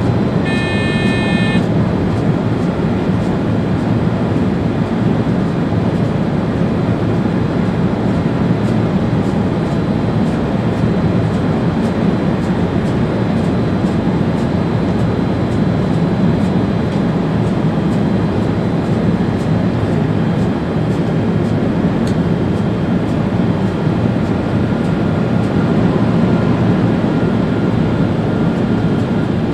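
Steady running noise of an ÖBB Railjet train heard inside the driver's cab, a continuous low rumble. About half a second in, a short high electronic beep sounds for about a second.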